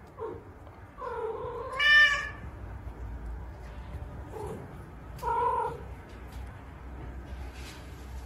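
A cat meowing four times: a short meow at the start, then a long drawn-out yowl about a second in that rises in pitch and is the loudest call, then two shorter meows around four and five seconds in.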